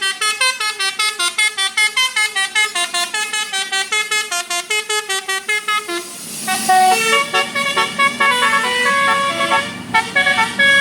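Indonesian bus 'telolet' basuri musical air horn playing a tune: quick staccato notes about five a second, then about six seconds in a rush of hiss and a switch to a slower melody with longer held notes.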